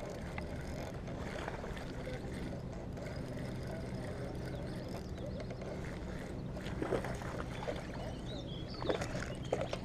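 Steady low rumble with a faint hum, and a few faint short sounds near the end.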